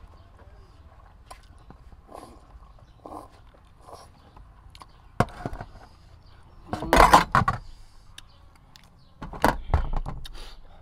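Close eating sounds: chewing and slurping of noodles and squid, with a sharp click about five seconds in and two louder noisy bursts about seven and nine and a half seconds in.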